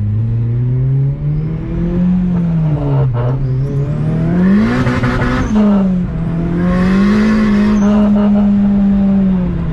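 Turbocharged K24-swapped Honda Civic accelerating hard. The engine's pitch climbs with a rush of turbo and intake noise, drops sharply at a gear change about five and a half seconds in, climbs and holds again, then falls away near the end.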